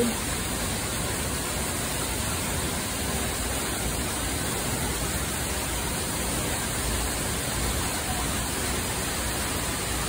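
Tall jungle waterfall in heavy flow, a steady, even rushing of falling water heard from near its base.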